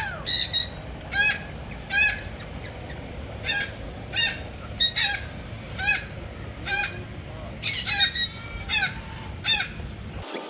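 A parrot squawking over and over, a harsh short call repeated a little faster than once a second; the calls stop abruptly just before the end.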